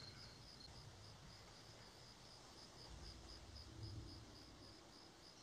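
Near silence with faint crickets chirping in an even pulse, about three chirps a second.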